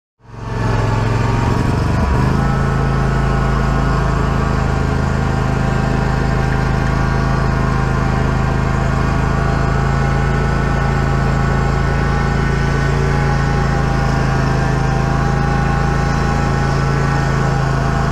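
Scag Tiger Cub zero-turn mower's engine running while the mower is driven; it picks up speed about two seconds in, then runs steady.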